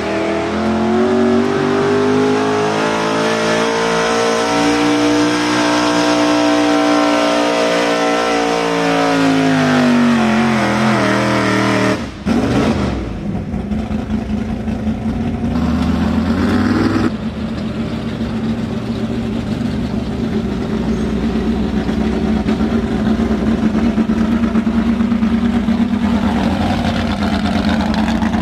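Truck engine pulling hard in a truck pull, revving with its pitch climbing over the first few seconds. The pitch sags about ten seconds in and the engine cuts back sharply near twelve seconds. After that it runs on at a lower, steady throbbing note.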